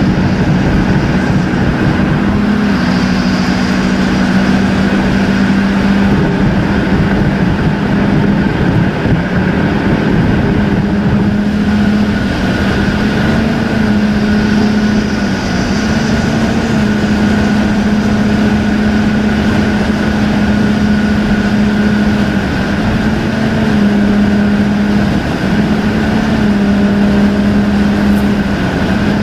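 Steady road noise inside a car cruising on a highway: tyre and engine drone with a constant low hum that shifts slightly in pitch now and then.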